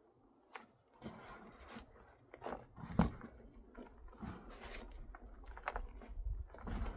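Compost and soil being scooped and shifted between containers: irregular rustling and scraping, with one sharp knock about three seconds in.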